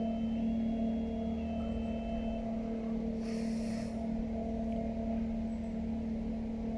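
Aerial tramway running, its ropeway machinery and moving cables giving a steady low hum as the cabin nears the top station. A short hiss comes about three seconds in.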